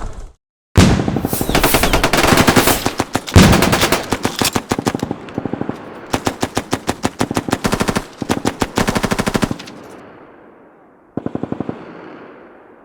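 Rapid automatic gunfire in several long bursts, then a trailing echo and one short final burst.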